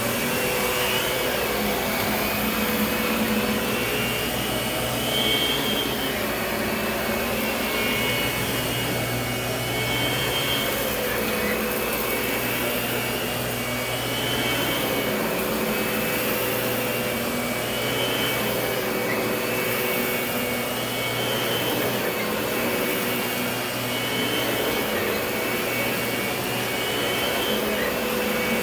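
Lindhaus vacuum cleaner running steadily while vacuuming, its high motor whine rising and dipping every two seconds or so.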